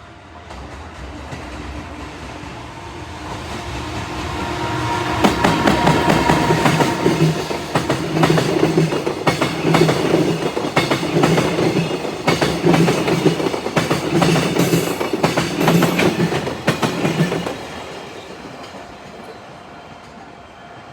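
EF210 electric locomotive and its freight wagons passing at speed: a rumble builds as the train approaches, then about five seconds in the wheels begin a loud, rhythmic clickety-clack over the rail joints, in repeating groups of clacks that run for about twelve seconds before falling away as the train goes by.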